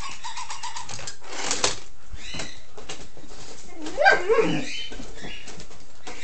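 Toy robot dog making short electronic chirps and yips, with faint ticking as it walks on a tile floor, over a steady hiss. A cluster of rising and falling chirps comes about four seconds in.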